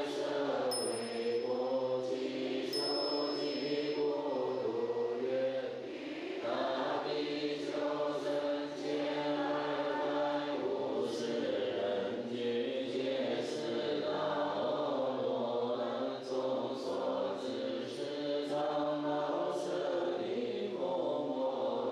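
Chinese Buddhist liturgical chanting: many voices of monastics and assembly chanting together in a slow melody with long held notes. A high ringing tone sounds briefly twice in the first few seconds.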